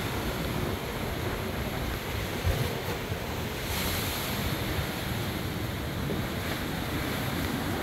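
Wind buffeting the microphone over a steady rush of surf breaking on limestone sea cliffs.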